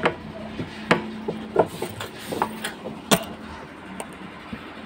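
Irregular sharp knocks and taps, about half a dozen, the loudest right at the start and about three seconds in, over a faint steady hum.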